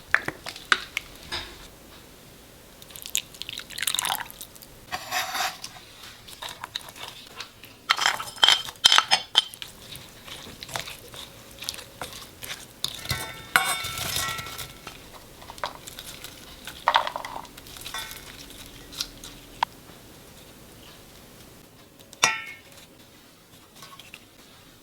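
Kitchen utensils and dishes being handled: scattered clinks, taps and scrapes of spoons against bowls and a pot, a few with a brief ringing tone, with some wet, liquid handling sounds in between.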